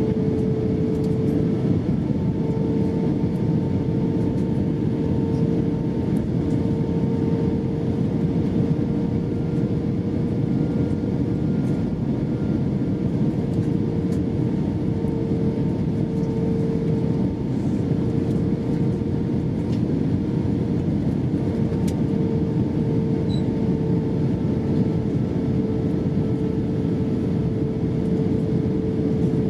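Steady in-flight cabin noise of an Airbus A320-232 heard from inside the cabin: the rush of its IAE V2500 engines and the airflow, with a steady humming tone running through it.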